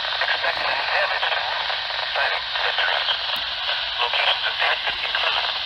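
Radio reception thick with static hiss, a voice only faintly heard through it. The sound is thin and tinny, with no bass or treble.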